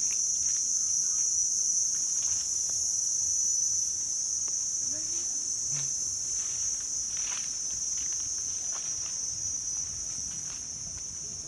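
A steady, high-pitched chorus of insects shrilling in the orchard trees, with faint rustling footsteps on dry leaf litter.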